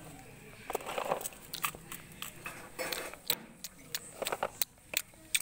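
Irregular light clicks and taps, a few every second, as small plastic toy animals are dragged on a string across rough concrete.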